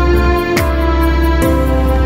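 Background music with a steady beat over sustained notes and a deep bass line.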